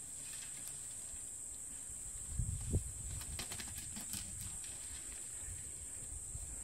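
Steady high-pitched drone of insects in the bush. A couple of low thuds come about two and a half seconds in, and a quick run of faint sharp cracks follows between about three and four and a half seconds in.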